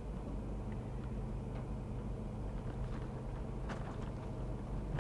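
Car being driven, heard from inside the cabin: a steady low engine and road drone, with a couple of faint clicks a little past the middle.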